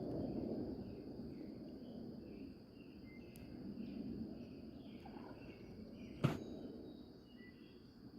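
Creekside ambience: a steady high insect drone with scattered faint chirps over a low rush of running creek water. There is one sharp click about six seconds in.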